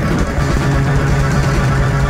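Loud live experimental electronic music: a steady low drone under dense, noisy layered tones.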